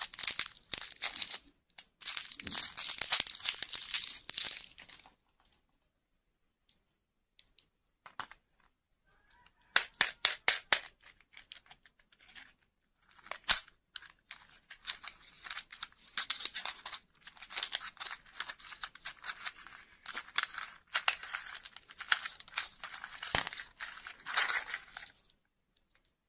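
Crinkly plastic-foil lollipop wrapper crackling and tearing as it is peeled off by hand. After a quiet stretch comes a quick run of sharp clicks about ten seconds in, then a long stretch of rustling as a small cardboard toy box is opened and the plastic-wrapped toy parts inside are handled.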